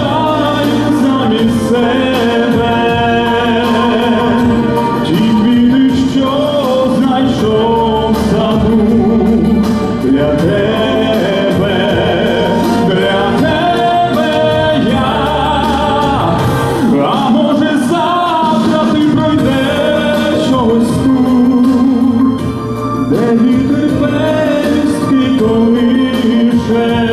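A man singing a Ukrainian pop song into a microphone over instrumental accompaniment with a steady bass line.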